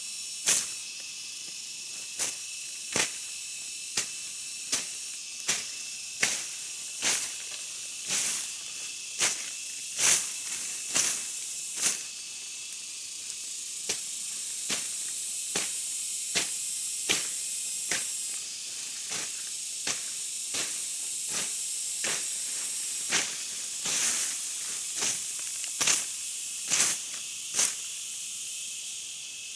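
Sharp knocks, about one a second, over a steady high-pitched hiss.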